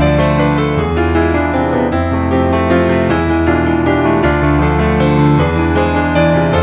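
Background piano music: a flowing melody of quick notes over a steady, changing bass.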